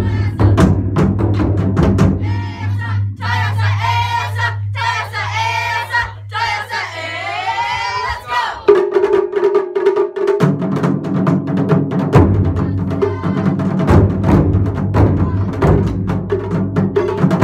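Taiko drums played by an ensemble: sharp stick strikes on barrel drums over a steady low drum rumble. Between about three and eight seconds in, the players call out in long, sliding shouts (kakegoe) over the drumming.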